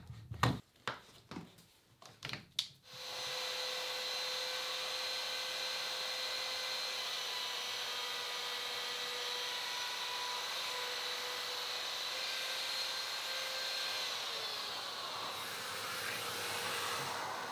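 A few knocks and clicks, then an electric router starts about three seconds in and runs steadily with a high whine, cutting a circular hole in a wooden piece; its pitch sags a little near the end.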